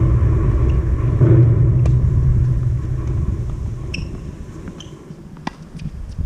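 A loud low rumble sets in suddenly and slowly fades over several seconds. A tennis ball is struck by a racket about two seconds in, and a sharper hit comes near the end.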